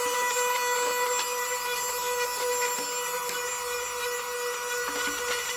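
A small electric motor running with a steady high whine, a cleaning tool used on the stove's insides, with a few light clicks and scrapes as it works.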